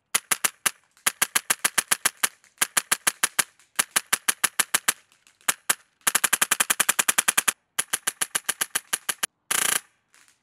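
Polarstar HPA-engine airsoft rifle firing in quick strings of sharp pops, about eight shots a second, with short pauses between strings. About six seconds in comes a longer, faster string, and near the end a very short, very fast burst.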